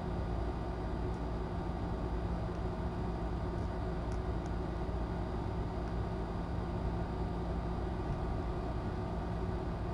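Steady low hum with hiss at a constant level, room background noise picked up by a live-stream camera's microphone, with a couple of faint ticks about four seconds in.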